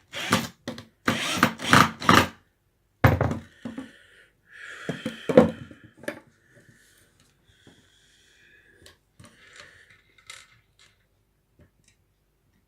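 Pieces of scrap wood being handled and rubbed against each other, with a quick run of loud scraping strokes over the first two seconds, another around three seconds in, a longer scrape around five seconds, then only faint light knocks.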